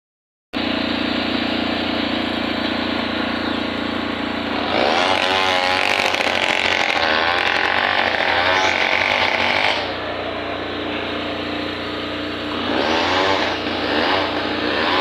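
A small engine running steadily, with people's voices calling over it.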